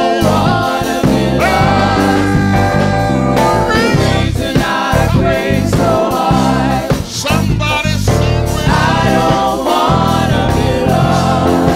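Live gospel singing through microphones over a band of keyboard, bass and drums, with the voices wavering in sustained sung notes.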